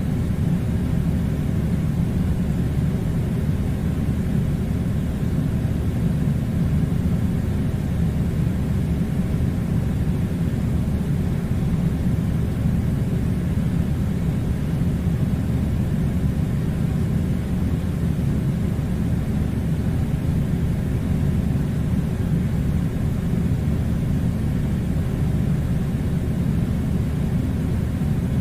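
Air conditioner running with a steady low rumble that does not change.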